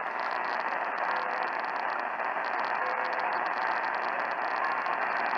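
Steady hiss of radio static on a received broadcast feed, even and unbroken, with the dull, narrow sound of a radio receiver's audio.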